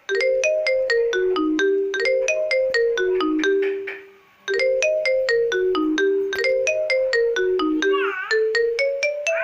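Marimba-style phone ringtone melody: quick struck mallet notes, about five a second, in a short phrase that repeats every two seconds or so. It fades out about four seconds in, stops for a moment, then starts over, and a warbling higher tone joins briefly near the eight-second mark.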